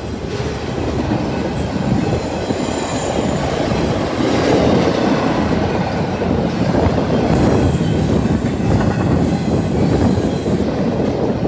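Double-stack intermodal well cars of a freight train rolling past at speed, wheels clattering over the rail joints, with a faint wheel squeal about three seconds in.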